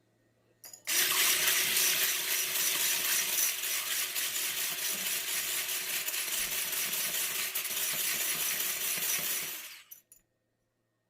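Electric hand mixer switched on for about nine seconds, its motor giving a steady hum while the beaters rattle and clink against the bowl, then switched off.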